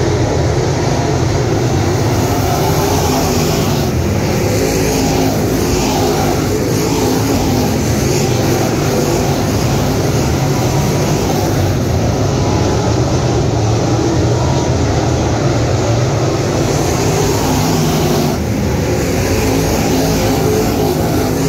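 A field of 604 crate late model dirt cars' small-block V8 engines running at race speed, many engines at once in a loud, steady drone that swells and fades a little as the pack passes.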